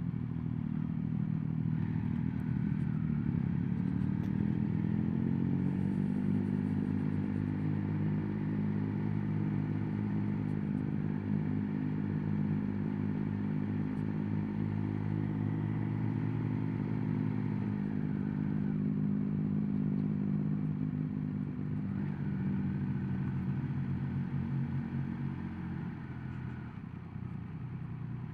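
Motorcycle engine running at low, fairly steady revs while riding, heard through a mic inside the rider's helmet, with wind rush over it. The engine note dips slightly about two-thirds of the way through and eases near the end.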